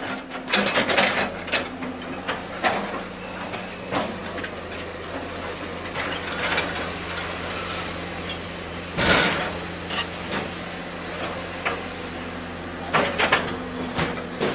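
Irregular metallic clanks and knocks, a few much louder than the rest, over a steady low hum.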